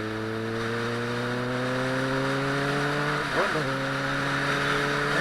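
Honda Hornet motorcycle engine pulling under slowly rising revs, with a quick gear change a little past halfway, then pulling on. A steady rushing hiss of wind and road noise runs underneath.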